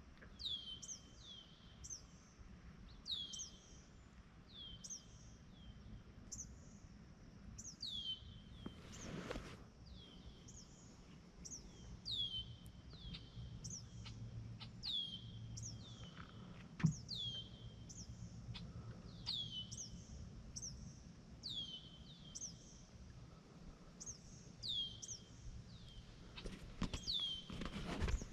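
A bird calling over and over: short high chirps that sweep downward, roughly one a second, over faint outdoor background noise. A brief rush of noise comes about a third of the way in and again near the end, and there is a single sharp tick a little past the middle.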